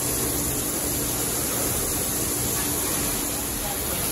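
Steady rushing noise of running kitchen equipment, with a faint low hum that comes and goes.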